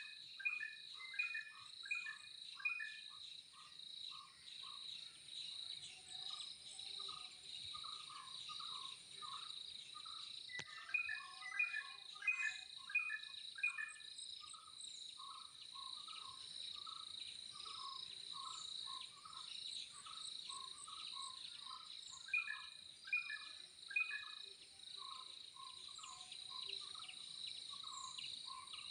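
Birds chirping in runs of short repeated notes, over a steady high-pitched insect drone like cicadas or crickets. The chirping comes in louder bursts near the start, about halfway through, and again later.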